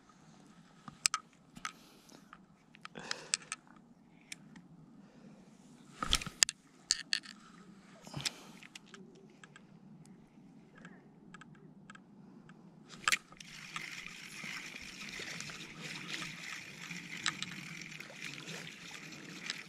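Scattered clicks and handling knocks on a fishing rod and spinning reel. Then, after a sharp click about two-thirds of the way through, a steady whirring hiss with fine ticking as the spinning reel is cranked to reel in a small bluegill.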